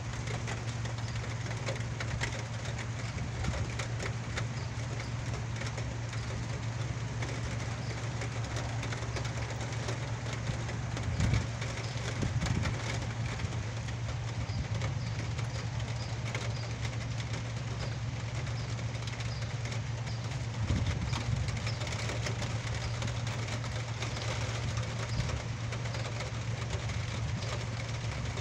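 Steady rain falling, with a steady low hum underneath.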